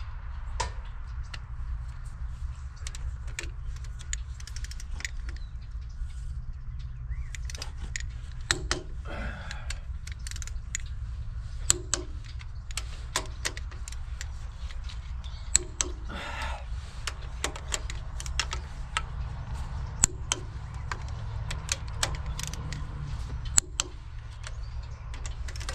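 Hand tools (wrench, ratchet and socket) clinking and clicking against engine hardware in scattered, irregular strokes, over a steady low hum.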